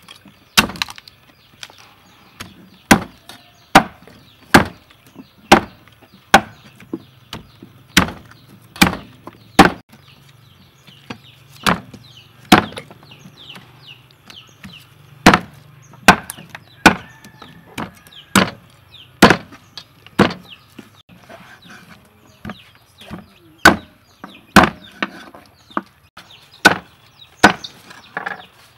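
Cleaver chopping raw chicken on a wooden chopping block: a long run of sharp, irregularly spaced chops, about one or two a second.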